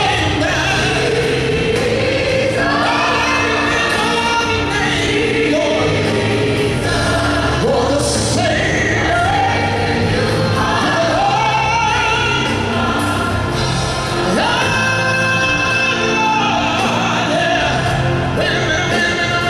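Live gospel music: a large choir singing with a male soloist on a microphone, over steady low accompaniment notes.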